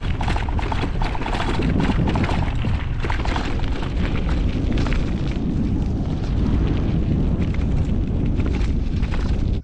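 Heavy wind buffeting the microphone of a handlebar-mounted camera on a bicycle moving along a dirt road, with the crackle and rattle of the tyres on the loose surface. The rumble is steady and loud, starting and stopping abruptly.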